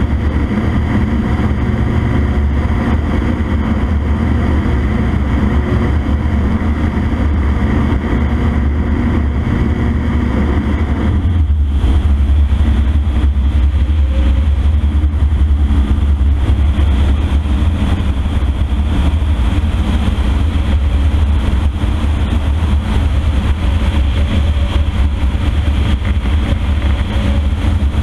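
CFM Shadow microlight's pusher engine and propeller running steadily in flight as a loud drone. About eleven seconds in the sound changes: the higher engine tones fall away and the low drone gets louder.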